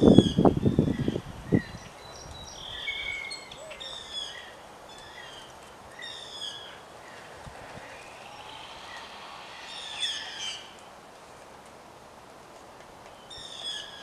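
Wild birds calling in short, high notes, one or two at a time every second or two, with a louder call about ten seconds in and another near the end. A few loud low knocks in the first second and a half.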